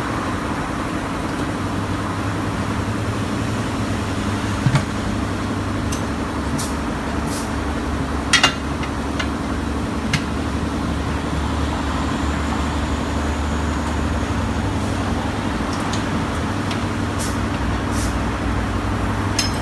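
Tyre-shop workshop noise: a steady low machine hum with occasional sharp metallic clicks and clinks from tools and wheel parts, and a louder clatter right at the end.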